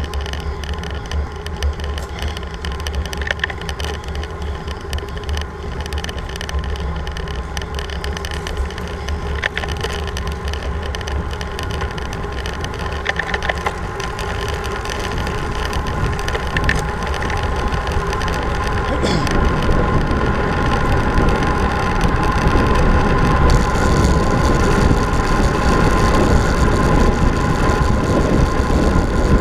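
Wind rushing over the microphone and road-bike tyre noise on a fast descent, growing louder as speed builds towards about 53 km/h, with a few sharp clicks from road bumps.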